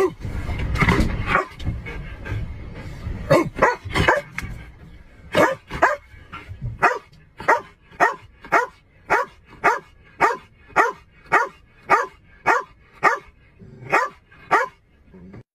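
Police K-9 dog barking inside a patrol car: a few scattered barks at first, then a long, steady run of barks at about two a second that stops just before the end.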